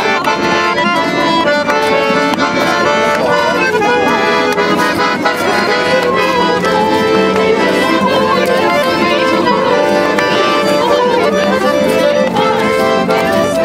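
Accordion playing a dance tune, with held chords over a steady beat.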